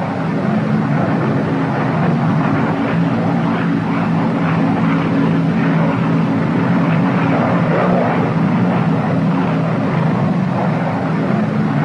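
The twin Pratt & Whitney R-2800 radial piston engines of a P-61 Black Widow droning steadily in level cruising flight on autopilot, a low, even hum.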